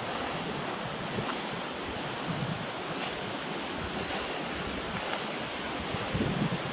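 Steady outdoor rushing noise with a bright, even hiss on top and a few faint ticks, with no pitched sound in it.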